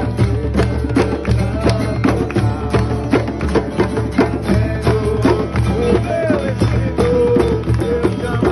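Folk-style music with busy, driving hand percussion and a wavering melody line over a steady low bass.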